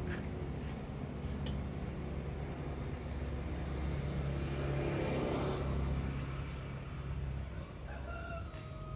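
Low, steady outdoor rumble with a vehicle passing, its sound swelling about halfway through and fading. Near the end, a rooster crows.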